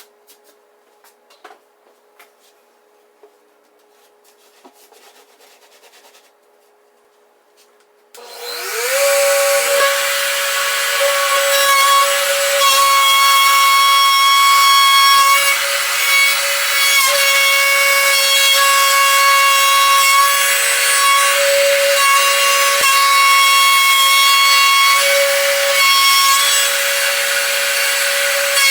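A few faint handling clicks, then about eight seconds in a power tool's motor spins up and runs steadily with a high whine while it cuts plywood.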